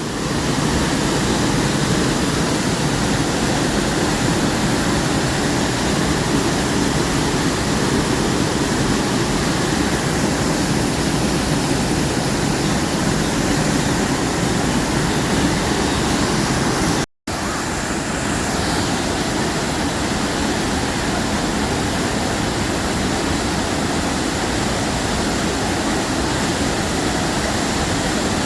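Steady rush of a waterfall heard close up, a dense even roar of falling water. It breaks off for an instant about seventeen seconds in, then carries on unchanged.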